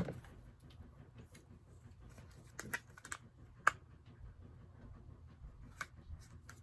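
Scattered light clicks and taps of plastic spin-mop and bucket parts being handled and set down, the sharpest about halfway through.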